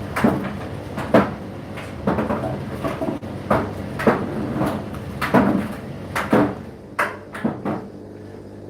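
Indesit IDC8T3 condenser tumble dryer running, its motor and fan humming steadily while the load tumbles in the drum with a string of knocks and thumps about twice a second. The knocks die away near the end, leaving only the hum.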